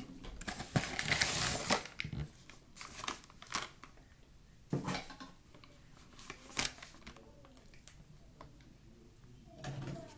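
Crinkling and rustling of a cornstarch box and its packaging being handled, loudest about a second in, followed by a few sharp knocks and quieter handling sounds.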